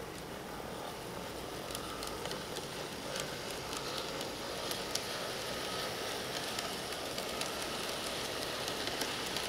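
Faint whir of an N-gauge model steam locomotive's small motor under low power, with crackly clicks from the wheels on the rails. The clicks come more often as it goes, and the sound grows slightly louder.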